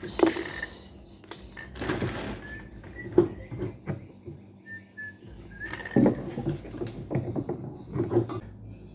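Irregular clunks and clatter of washing machine parts being handled, with a few short squeaks.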